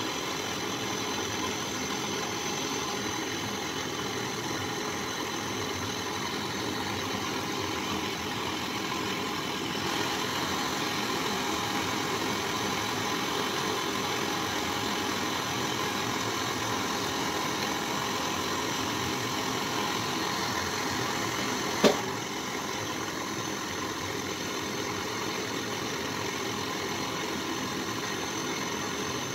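Handheld gas torch burning with a steady hiss, its flame held on silver being melted in a ladle. About three quarters of the way through there is a single sharp click.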